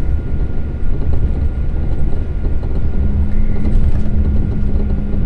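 Steady low rumble of engine and tyre noise heard from inside a moving vehicle at highway speed, with a faint high whine throughout and a steady low hum joining about three seconds in.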